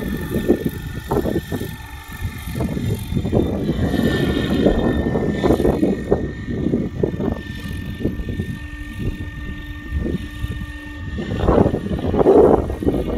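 Radio-controlled scale UH-1 helicopter flying overhead, its rotor and motor heard as a steady thin whine above an uneven rumble. Heavy wind buffets the microphone in gusts.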